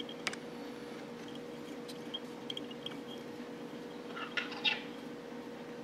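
Faint rustling and a few light ticks of fingers handling thread and yarn on a fly in a tying vise, with a short burst of scratchy rustling about four seconds in, over a steady low hum.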